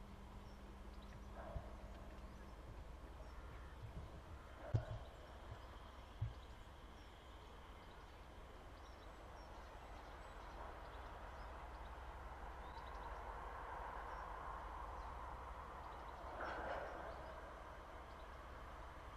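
Rake of loaded TEA bogie tank wagons being shunted slowly over the track: a faint low rumble with sharp knocks about 1.5, 5 and 6 seconds in, and a rolling wheel noise that swells in the second half and peaks near the end.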